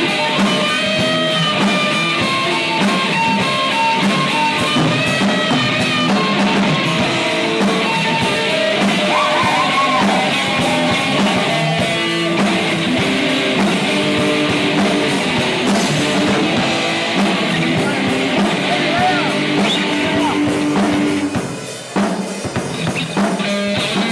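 Live band playing rock with drum kit and electric guitar, the guitar carrying a melody over the beat. About 21 seconds in, the full band drops out and the guitar goes on in short separate bursts.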